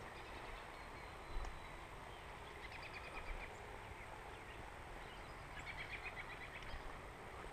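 A bird calling in two short runs of rapid repeated notes, about three seconds in and again near six seconds, over faint outdoor background noise. A single low thump comes about a second and a half in.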